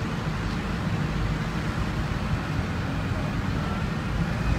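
Steady low engine rumble from a running truck-mounted crane and city road traffic.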